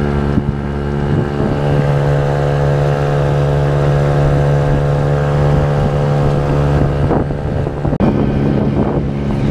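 5 hp Mercury outboard motor running at a steady speed, pushing the boat along at an even, unchanging pitch.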